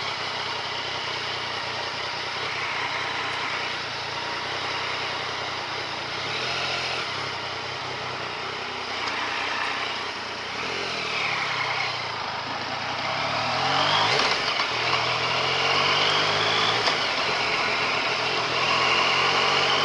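Yamaha MT-09 Tracer's three-cylinder engine under way, its note falling and rising through the first part, then climbing steadily and a little louder from about two-thirds in as the bike pulls away, over a steady rush of wind and road noise.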